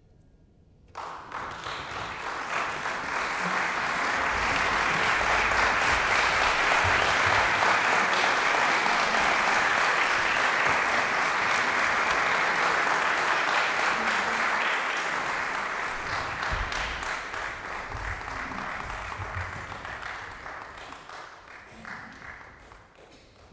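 Concert audience applauding. The applause breaks out suddenly about a second in, swells to a full ovation, then slowly dies away towards the end.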